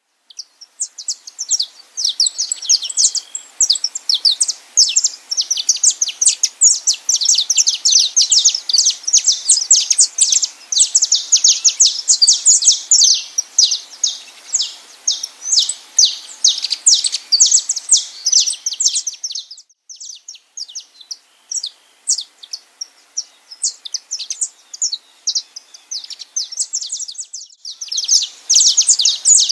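A flock of small songbirds chirping and calling over one another in a dense, rapid chatter of short high notes. The chatter thins out for several seconds past the middle, then comes back thickly near the end.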